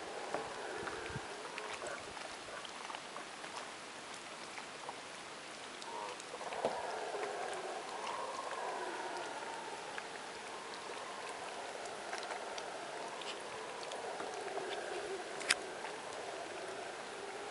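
An unexplained, continuous wavering moan or hum whose pitch drifts slowly up and down. The people hearing it ruled out wind and trees rubbing together and took it for some animal, but it was never identified. Faint scattered ticks sound around it, with one sharper click near the end.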